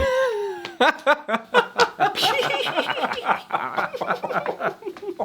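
A person vocalising without words: a long falling cry, then a rapid run of pitched voice pulses, about five a second.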